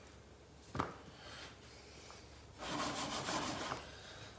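Hands tossing and pressing chicken pieces in flour in a glass baking dish: one knock about a second in, then a stretch of rubbing and scraping of flour-coated chicken against the dish.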